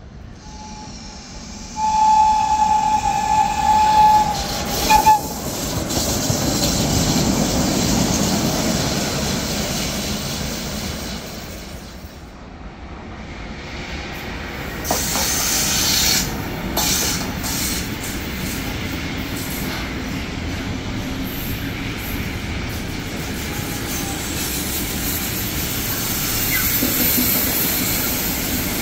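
Electric locomotive sounding its horn, one steady note for about three seconds, then running past with a broad rumble. After a short dip, a class 186 TRAXX electric locomotive and its train pass by, wheels clicking sharply over rail joints and then running on steadily.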